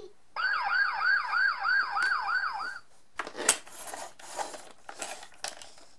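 VTech Toot-Toot Drivers fire engine book playing its electronic siren sound effect: a quick falling tone repeated about three times a second for a little over two seconds. It is followed by plastic clicks and rattles as the book is handled.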